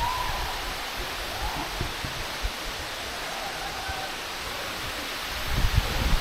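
Steady rushing roar of Hanakapiai Falls, water plunging into its pool, with some low rumbling near the end.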